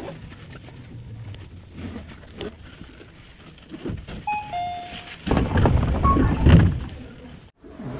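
Commuter train at a station stop: low rumble with scattered knocks and clunks, a few short chime-like tones about halfway through, then a louder rushing noise for about two seconds that cuts off suddenly near the end.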